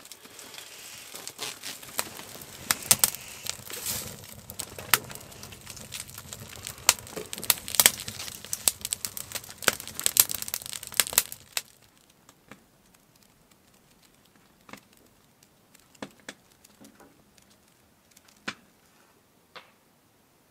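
Freshly lit kindling fire crackling and popping with sharp snaps inside a small hot-tent wood stove, its door open, as birch bark and split kindling catch. The crackle cuts off abruptly about eleven seconds in, leaving only a few faint ticks.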